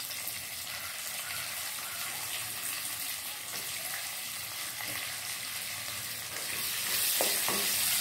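Chopped onions and roasted gram dal sizzling in hot coconut oil in a non-stick pan as the onions wilt. About six seconds in, a wooden spatula starts stirring them and the sizzle grows louder, with a few light knocks of the spatula against the pan.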